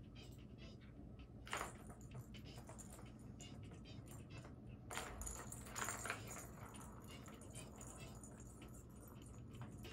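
A cat paws at a plastic ball-track toy, knocking the rattle ball inside it: short plastic clatters and rattles, once about a second and a half in and again around five and six seconds in, with faint room noise between.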